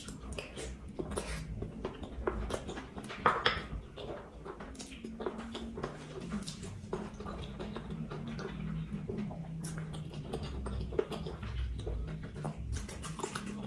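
A person chewing a mouthful of grilled balut close to the microphone: a run of short wet clicks and smacks, with a sharper click about three seconds in.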